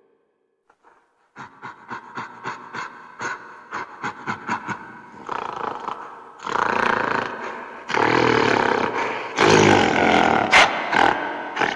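Gorilla vocalizing: after a brief silence, a quick series of short calls, several a second, then longer, louder calls from about halfway in, with a sharp peak near the end. The sounds are labelled as gorilla belches.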